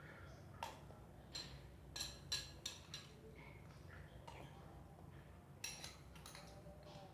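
Metal cutlery clinking against a dish: a few faint, short clinks with a slight ring, bunched in the first three seconds and again near the end.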